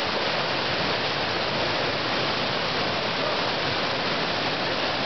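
River rapids rushing steadily, an even, unbroken wash of white water.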